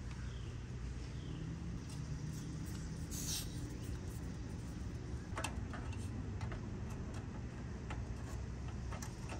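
Night campsite ambience: a steady low hum, with a few faint short chirps near the start, a brief hiss about three seconds in, and scattered light clicks and taps in the second half.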